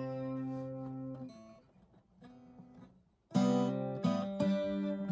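1975 Gibson twelve-string acoustic guitar being strummed. A chord rings and fades away, a few quieter notes follow with a short pause, and then a loud new run of strummed chords starts about three seconds in.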